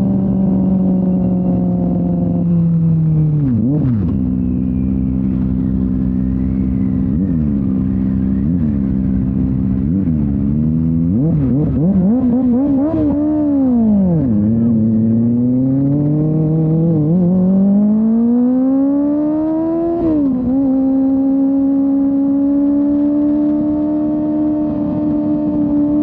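Kawasaki Ninja ZX-25R's inline-four engine through a Yoshimura R-11 exhaust on the move. The revs fall away, dip sharply about four seconds in, wander through a run of short dips and rises, then climb steadily before a gear change about twenty seconds in, after which the engine holds an even note.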